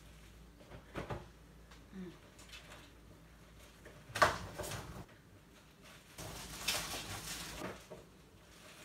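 Kitchen handling sounds: a light click about a second in, a sharp knock about four seconds in, which is the loudest, then a couple of seconds of rattling and clinking near the end as a metal fork goes into the pot.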